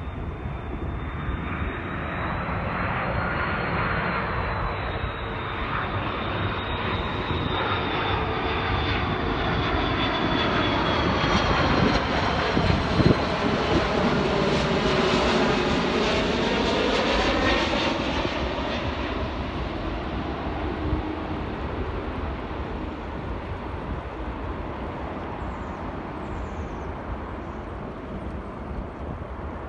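Airbus A330 twin-jet airliner on final approach with gear down, its jet engines' roar and high whine building as it comes in low and passes close. The whine slowly drops in pitch; the noise peaks with a sweeping, swirling tone about halfway through, then fades to a lower, distant rumble.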